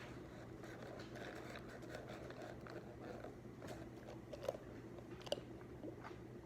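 Faint desk sounds of studying: soft scratching and rustling of pen and paper over a steady low room hum, with two small sharp clicks about four and a half and five and a half seconds in.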